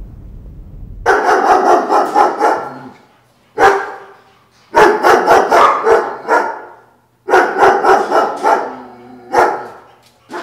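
A dog barking in several loud bouts of rapid barks, with short pauses between them.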